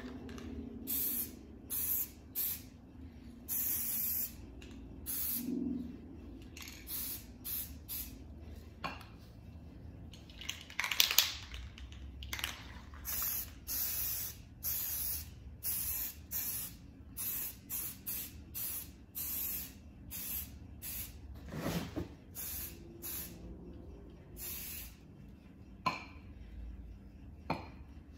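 Rust-Oleum camouflage aerosol spray paint cans hissing in many short bursts, each a fraction of a second, as a freehand camouflage pattern is laid down. There is one louder knock about a third of the way in.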